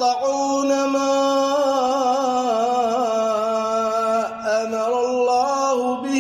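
A man reciting the Quran in melodic tajweed style, drawing out long ornamented notes with wavering pitch. There is a brief break about four seconds in before the chant goes on.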